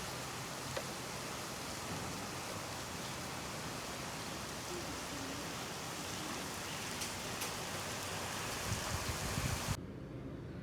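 Steady rain falling, a dense even hiss with a few sharp ticks of drops. There are low thuds shortly before it cuts off abruptly near the end.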